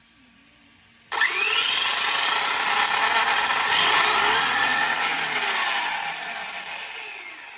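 Kyosho Mad Van VE's brushless motor and drivetrain spinning the wheels in the air: it starts suddenly about a second in, a whine that rises and wavers in pitch with the throttle, then winds down over the last couple of seconds.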